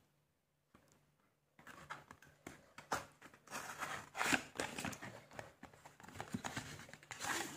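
Thin cardboard carton being opened by hand and its inner card sleeve slid out. There is irregular scraping and rustling of the card, starting about a second and a half in.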